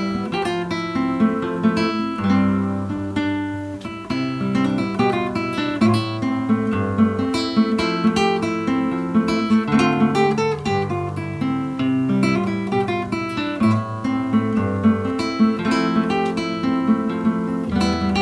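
Solo classical guitar playing a fingerpicked piece, with melody notes and chords plucked over sustained bass notes.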